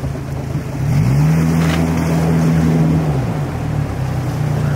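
Outboard motor pushing an aluminum jon boat. It speeds up about a second in, holds steady, then eases back shortly after three seconds.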